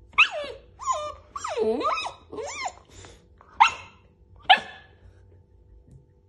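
Puppy whining and yapping in protest: about half a dozen short, high cries that slide up and down in pitch, one of them longer and wavering, over the first four and a half seconds.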